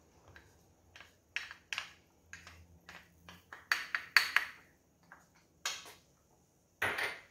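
A spoon tapping and scraping against a small bowl, knocking minced garlic into a frying pan: a string of irregular clicks and knocks, the loudest cluster about four seconds in and one more near the end.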